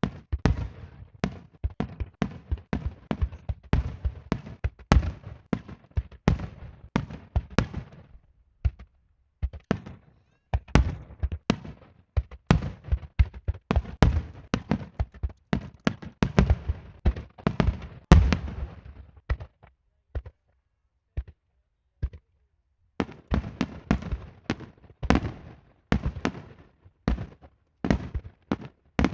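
Aerial fireworks shells bursting in rapid volleys of sharp bangs, each followed by a low rumble. The volleys pause twice, about a third of the way in and again after about two-thirds, then start again.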